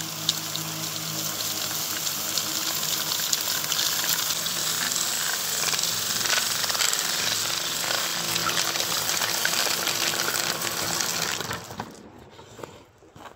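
Battery-powered power broom, a rotating bristle sweeper brush on a cordless trimmer powerhead, running as it sweeps loose gravel ballast off the rails, with a steady rattle of flung stones over the motor's hum. The motor and the rattle stop near the end, leaving a few faint clicks.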